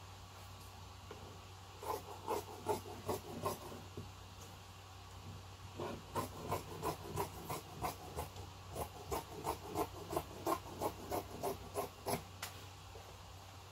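Fabric scissors snipping through blind fabric in quick, even cuts of about four a second: a short run about two seconds in, then a longer run from about six seconds in until shortly before the end.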